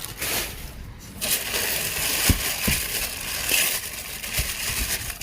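Crumpled recycled-paper packing rustling and crunching as it is handled in a box, with a few short knocks.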